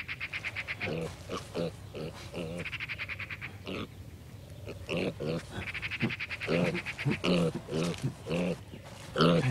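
Domestic pig grunting: a series of short low grunts, several in quick succession, over a fast high-pitched chirring that comes and goes three times.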